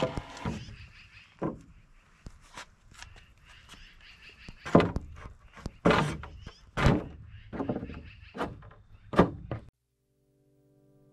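Wooden framing lumber knocking and thunking as 2x4 boards are handled and set down on a concrete slab, with footsteps between the knocks. Near the end the sound cuts off and music begins to fade in.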